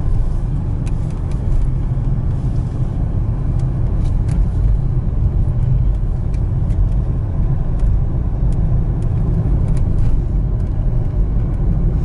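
Inside a moving car: steady low rumble of the engine and tyres on a slightly rough road, with scattered light clicks and rattles.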